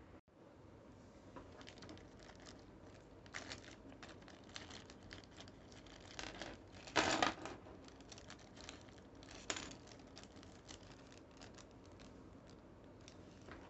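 Clear plastic bag crinkling as hands handle and open it, in a stream of short rustles, with the loudest crinkle about seven seconds in.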